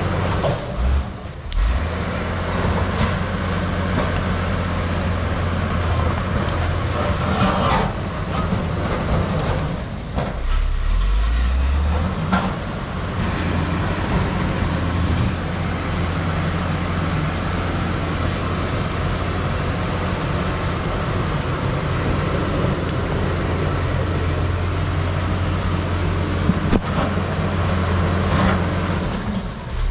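Case crawler bulldozer's diesel engine running steadily under load while the dozer pushes a large rock and stump through the dirt. The engine note dips briefly about a second in and again around ten seconds in.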